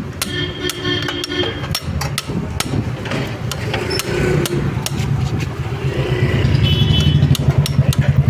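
A two-wheeler engine running at idle with a low, pulsing hum that grows louder about six seconds in, over repeated sharp metal clicks and knocks from tool work.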